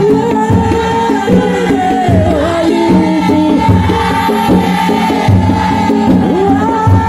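A group of women singing a maoulida chingui, a Comorian women's devotional song, in unison over a steady percussion beat.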